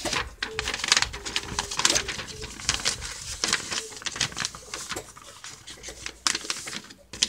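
A sheet of paper being folded and creased by hand: irregular crisp rustles and crinkles as the paper is handled and pressed along the fold.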